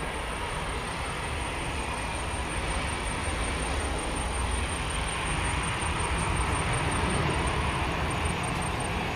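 Airbus A320-200 airliner's jet engines during touchdown and landing rollout: a steady rumble and hiss that grows somewhat louder past the middle.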